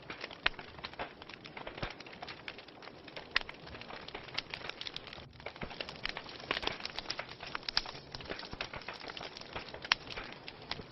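Wood fire burning in a fireplace, crackling with many irregular sharp pops over a soft steady hiss.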